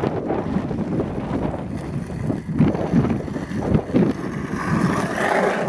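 Skateboard wheels rolling over pavement in a steady rumble, with wind buffeting the microphone; a rougher, higher sound joins in near the end.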